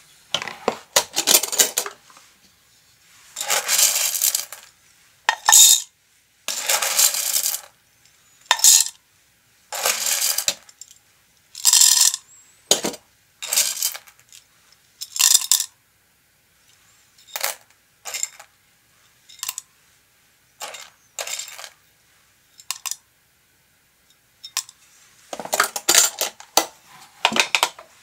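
Whole roasted coffee beans poured into a clear plastic dosing cup in a series of short pours, each a rattling clatter of beans on plastic and on each other. The pours come about every second or two, shorter and fainter in the middle, with a louder run of pours near the end.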